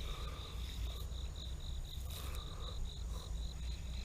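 An insect chirping in a steady high-pitched pulsed trill, about five pulses a second, over a faint low rumble.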